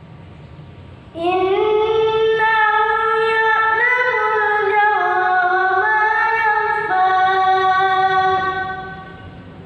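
A child's voice reciting the Quran in melodic tilawah style: one long, ornamented phrase on a high held pitch with small turns and steps. It starts about a second in and fades out near the end.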